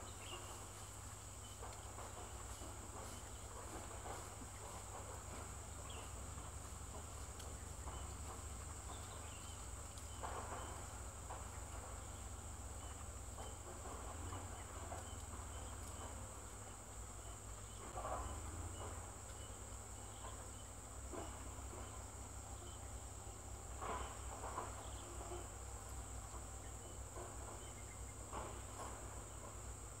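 Insects chirring steadily, an unbroken high-pitched drone, with a few brief soft rustles.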